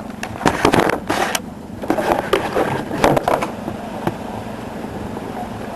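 Small clicks and scraping of a tool working against the plastic frame of a G18c-style airsoft electric pistol as a frame pin is pushed out. The scraping comes in bursts over the first three and a half seconds, then only a steady low hum remains.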